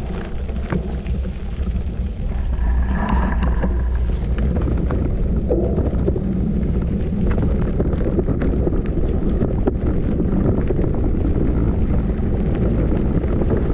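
Wind buffeting the microphone as a steady low rumble, with scattered short clicks and rattles throughout.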